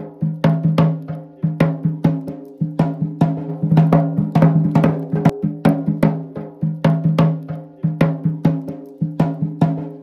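Background music with a quick, steady percussive beat of sharp strikes over a held low note.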